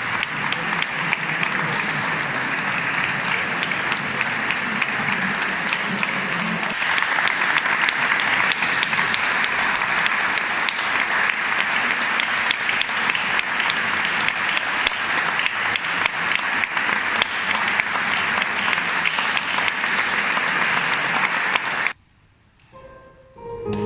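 Audience applauding steadily, then cut off abruptly near the end. A piano begins playing just after.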